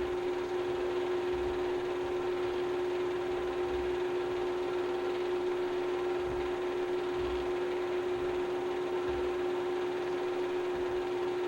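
Steady electrical hum with hiss and nothing else: a constant low tone with a fainter higher overtone over an even noise floor, on a film transfer that has no recorded sound.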